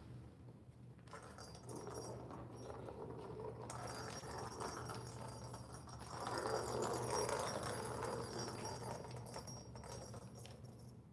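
Kittens scuffing and scratching inside a plastic cat play bowl with a cardboard scratch pad and ball track, loudest a little past the middle.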